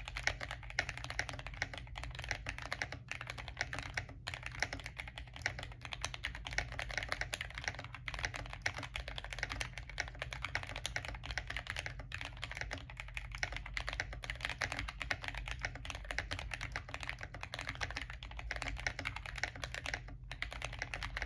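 Continuous typing on a Glorious GMMK Compact keyboard with lubed Kailh Box Brown tactile switches, a dampened case with the press-and-seal mod, and Cherry profile keycaps. The keystrokes run together with only a few brief pauses, over a steady low hum.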